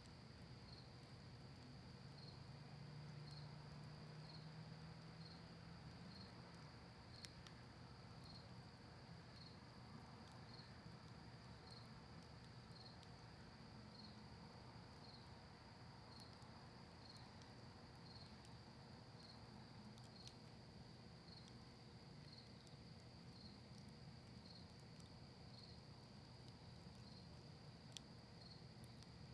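Faint, steady cricket trill with a slight pulse about once a second, broken by a few sharp, sparse crackles from a burning cedar and maple wood campfire.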